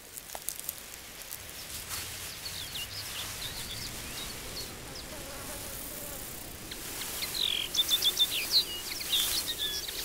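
Small birds singing over an open field: a run of quick, high chirps and short trilled notes over a faint steady hiss, getting busier about seven seconds in. A few soft rustles near the start.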